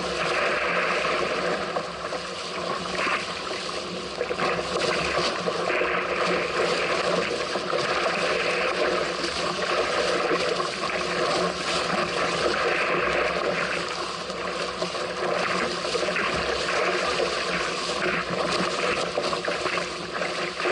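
Water rushing and splashing past a small sailing craft under way in strong wind, with wind noise on the microphone.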